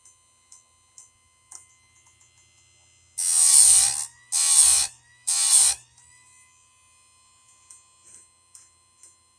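Electric chainsaw-chain grinder running with a steady whine, its grinding wheel biting into a chain tooth in three loud, hissing passes of under a second each, about three seconds in; the motor dips under load and spins back up after each. Light clicks as the chain is positioned come before and after.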